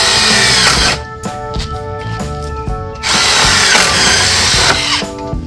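Power drill running in two bursts, a short one of about a second and a longer one of nearly two seconds, over background music.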